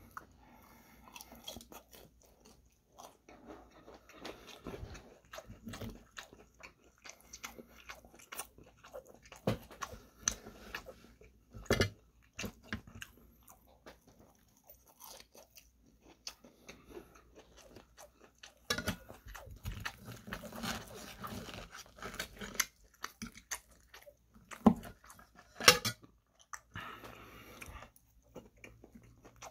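Close-up chewing and crunching of fried, breaded chicken katsu, made up of irregular mouth clicks and short crisp crunches. The crunching is busiest about two-thirds of the way in, with a few sharp crunches near the end.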